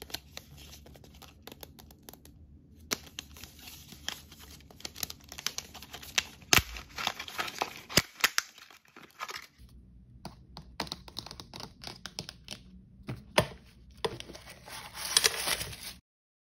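Plastic blind-bag packaging crinkling and tearing, with sharp clicks and taps of long fingernails on a hard plastic toy ball. The sound stops abruptly near the end.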